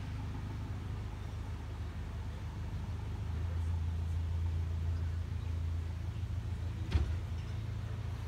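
Narrowboat's engine running at a steady low chug under way, growing a little louder about three seconds in. A single sharp knock sounds near the end.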